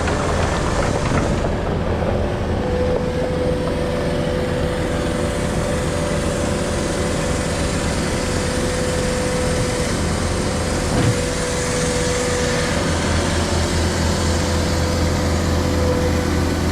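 Case SV280 skid steer's diesel engine running steadily, with a thin steady whine joining about three seconds in.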